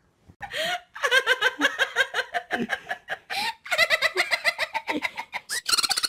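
High-pitched laughter in long, rapid runs of short bursts, with a short break about halfway through, climbing higher near the end.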